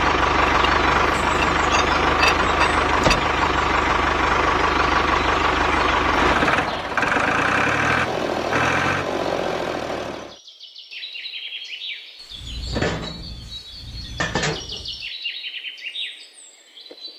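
An engine runs steadily for about ten seconds and then cuts off suddenly. Birds chirp after that, with a few low thuds.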